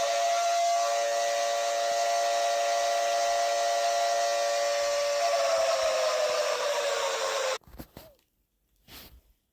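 Warning siren sounding at a steady pitch with a whirring hiss, then sliding down in pitch before cutting off abruptly about three-quarters of the way through. A few faint short sounds follow.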